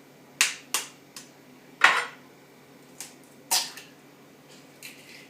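An egg being knocked against the rim of a dish to crack it: about six sharp, separate taps, the loudest about two seconds in.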